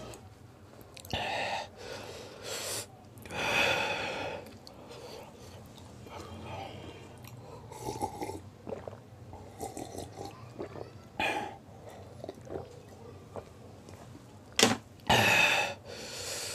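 A man breathing out hard and gasping, his mouth burning from eating raw green chillies, in several loud breathy huffs, with quieter swallowing of water midway. A sharp knock comes near the end.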